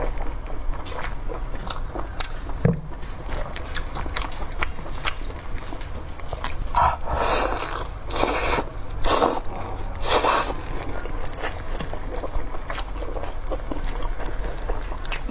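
Close-miked wet chewing and biting of braised pork intestine, with many small smacking mouth clicks and a few louder, longer mouth sounds in the middle, over a low steady hum.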